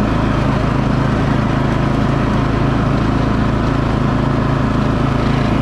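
Troy-Bilt TB30R riding lawn mower's engine running at a steady speed while the mower is driven across the lawn.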